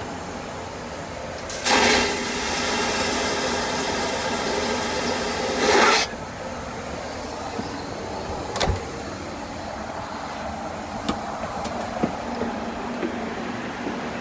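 Boeing 737-900ER vacuum toilet flushing: a loud rushing suction starts suddenly about two seconds in, surges at its start and end, and cuts off about four seconds later. Afterwards comes a sharp knock and a few small clicks over the steady hum of the cabin air.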